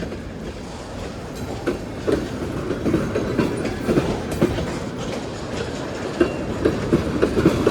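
Freight cars of a Union Pacific manifest train rolling past close by: a steady rumble with irregular clickety-clack of wheels over the rail joints.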